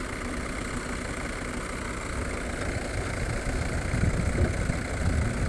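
Mahindra tractor's diesel engine idling steadily, then running louder and rougher from about three seconds in as it takes load.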